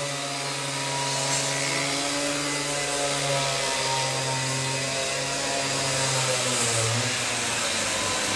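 A small engine running at a steady speed, with a steady hiss over it and a slight wobble in its pitch about two-thirds of the way in.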